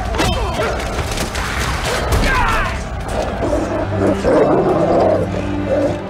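Battle-scene film soundtrack: music under men yelling and scattered clashing impacts, with a low sustained note coming in about halfway.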